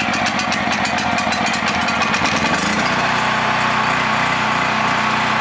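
Predator 3200/4000-watt portable generator's engine running just after a pull start, fast and uneven at first, then settling into a steady run about two and a half seconds in. It is burning off old, stale fuel.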